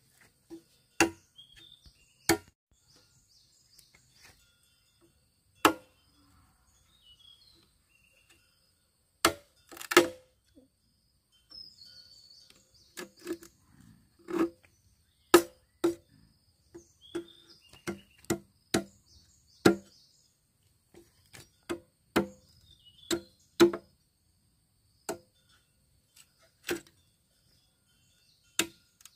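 A blade chopping into wood, sharp strikes at an uneven pace, from a fraction of a second to a couple of seconds apart, with faint birds chirping behind.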